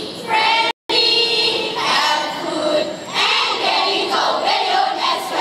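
A group of schoolchildren's voices reciting and singing together in unison, choral speaking with some held sung notes. The sound cuts out completely for a moment just under a second in.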